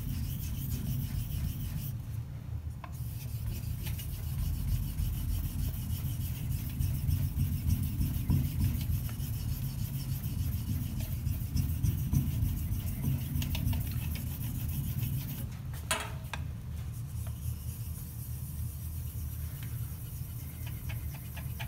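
Straight razor blade being stroked back and forth on a 5000-grit Shapton water stone loaded with slurry, a continuous wet rubbing and scraping. This is the 5K honing stage after the bevel set. A brief cluster of clicks comes about three-quarters of the way through.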